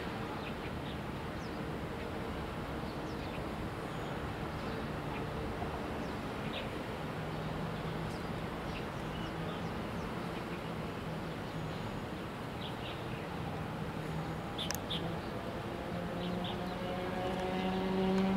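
DR2700 stainless-steel diesel railcar's engine running with a steady low drone that rises in pitch near the end as it revs up. Birds chirp briefly over it.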